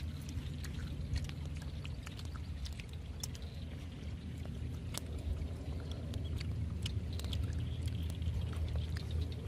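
Wind rumbling on the microphone, with scattered light clicks and crackles as a plastic bag and leafy branches are handled.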